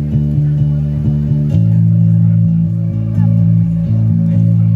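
Live band's guitars and bass playing an instrumental passage of a rock song over a steady beat, changing chord about a second and a half in.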